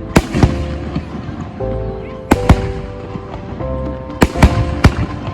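Fireworks going off: about seven sharp bangs in close pairs, roughly every two seconds, over background music with sustained chords.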